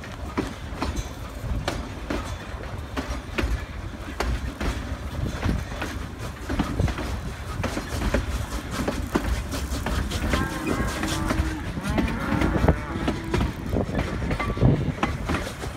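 Cattle mooing several times from about ten seconds in, over the steady rumble and clickety-clack of a narrow-gauge train's wheels running over the rail joints.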